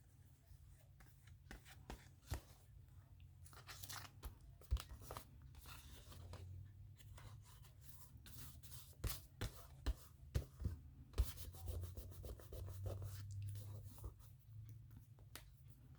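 Paper cut-outs being cut and handled: scattered crisp snips, crinkles and rubbing of magazine paper, busiest in the middle stretch.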